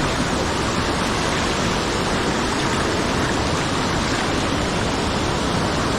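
Waterfall's steady rush of falling water, a dense, even noise with no breaks.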